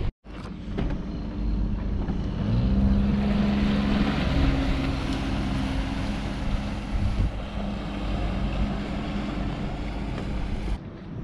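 A small motorboat's engine running under way, with rushing wind and water; the engine note rises and grows louder about two and a half seconds in, then holds steady.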